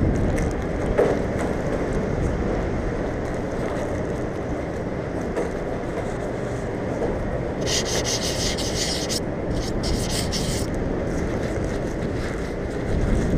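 Steady rubbing and scraping noise right at the action camera's microphone, as if something is chafing against the camera housing, with two short hissing bursts in the second half.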